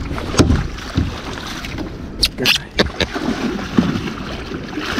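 Water splashing and hollow knocks and clatters against a plastic fishing kayak, with a quick run of sharp clatters about two seconds in.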